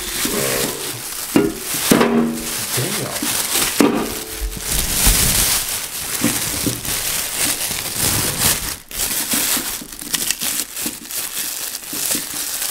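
Thin plastic shopping bag crinkling and rustling as a hand rummages in it and lifts items out.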